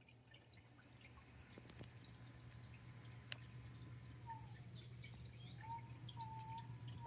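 Water trickling and splashing into a garden biotope pond from a small stone waterfall fed by well water, under a steady high hiss. A bird's whistled notes come in about four seconds in and again near six seconds.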